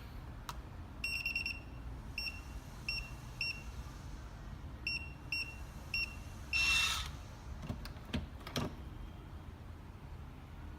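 Smart door lock keypad beeping as a code is keyed in: a longer high beep about a second in, then about six short single beeps at uneven intervals, one per key press. A short, louder noisy burst follows just before seven seconds, with a couple of knocks about a second later.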